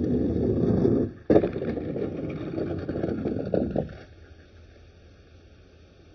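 Low, rough rumbling noise on the microphone that breaks off briefly about a second in, returns suddenly, and dies away about four seconds in, typical of wind buffeting or handling of the microphone.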